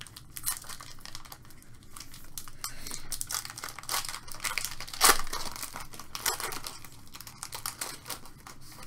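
Trading card pack wrapper crinkling and tearing as it is opened by hand, an irregular run of crackles with the sharpest about five seconds in.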